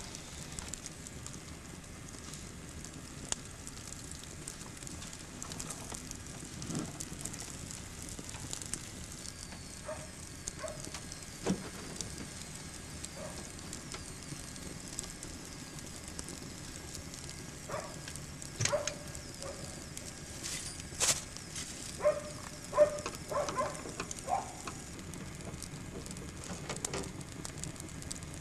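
Wood fire crackling and hissing in a hearth, with scattered knocks and clinks in the second half.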